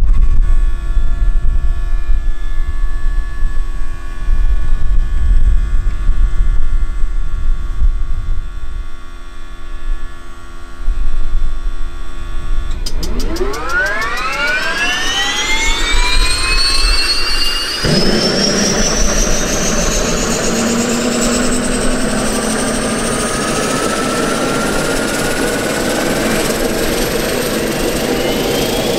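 Grob G120TP's Rolls-Royce 250 turboprop engine starting. After a steady hum and wind on the microphone, about 13 seconds in a whine rises steeply in pitch as the turbine is spun up. About five seconds later a loud rushing noise joins as the engine lights and runs up, while the whine keeps climbing slowly.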